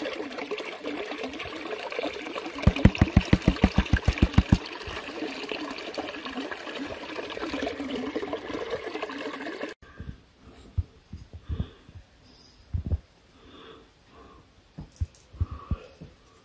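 Water swishing and sloshing in a plastic gold pan as it is swirled to wash black sand, with a quick run of low knocks, about five a second, for a couple of seconds near the start. After about ten seconds the water stops abruptly and only scattered soft knocks and taps of handling are heard.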